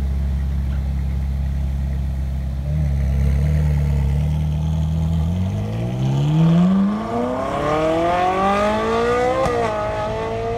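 Ferrari 458 Spider's V8 running at low revs as the car rolls out, then pulling hard with the engine note climbing steeply in pitch. The pitch dips briefly for an upshift about nine seconds in, then climbs again.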